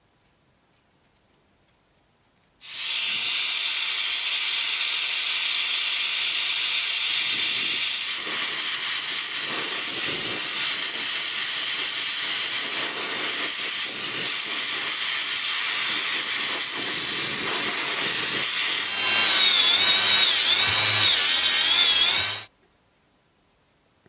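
Gas brazing torch flame hissing steadily while a carbide tip is silver-soldered to a lathe tool. It starts suddenly a few seconds in and cuts off abruptly near the end, with a wavering high whistle joining in its last few seconds.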